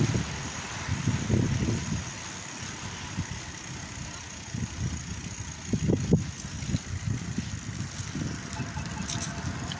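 Wind buffeting on the microphone of a camera carried while cycling: gusty low rumbles that swell and fade, loudest about a second in and again around six seconds, over a steady noise.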